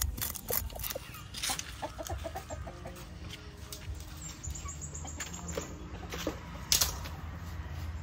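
Chickens clucking in short runs of quick, evenly spaced clucks, with a sharp knock near the end.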